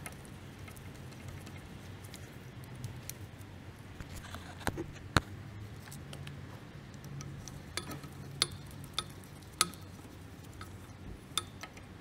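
Sharp metallic clicks and taps of a hand tool working the electric parking-brake motor onto the rear brake caliper, scattered from about four seconds in, with one louder knock about five seconds in. A low steady hum runs underneath.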